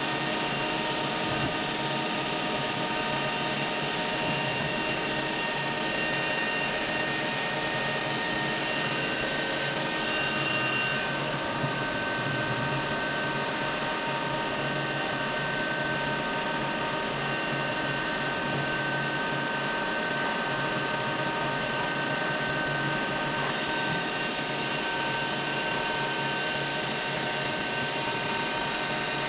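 CNC milling machine running continuously while cutting a motor end cup: a steady machine whine made of several held tones over a constant noise, with small shifts in pitch about a third of the way in and again near the end.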